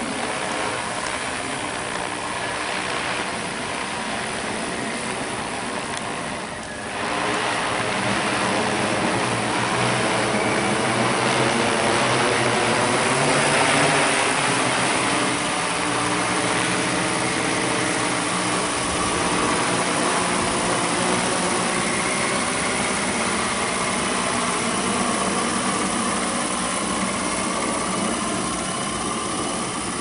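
Large quadcopter's electric motors and propellers buzzing with a steady pitched hum as it descends to land in return-to-launch mode. The sound gets louder about seven seconds in as the drone comes closer.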